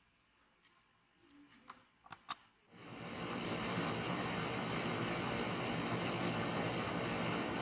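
A few light clicks and taps, then about three seconds in a power tool is switched on, comes up to speed within a second and runs steadily with an even rushing noise.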